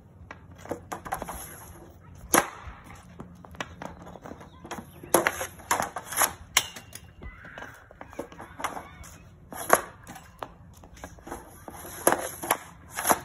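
A hockey stick slapping pucks off a plastic shooting pad: an irregular series of sharp clacks, some in quick clusters, as shot after shot is taken.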